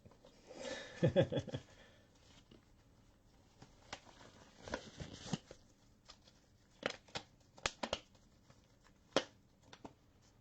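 Faint handling noises: scattered clicks, taps and short rustles of card boxes and packaging being handled on a table. A brief murmur of a voice about a second in.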